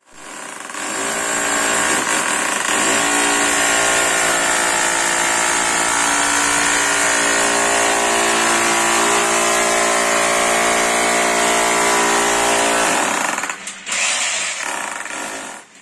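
Electric hammer drill boring a hole into a wall, running steadily at full speed. It stops for a moment about thirteen seconds in, starts again, and stops just before the end.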